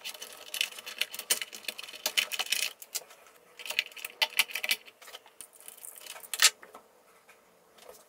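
Irregular small clicks and rattles of a hand handling stiff wires and plastic distribution blocks inside an electrical control cabinet, with one louder click about six and a half seconds in and fewer sounds near the end.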